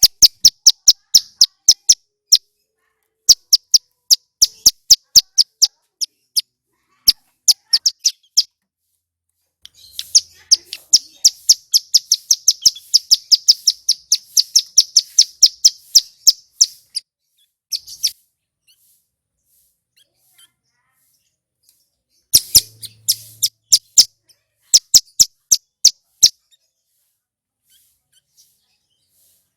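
Male ciblek gunung, a small prinia, singing loud, clear runs of sharp, high ticking notes, several a second. About ten seconds in the notes run together into a long, fast trill of seven seconds or so, followed by shorter runs, and the song stops a few seconds before the end.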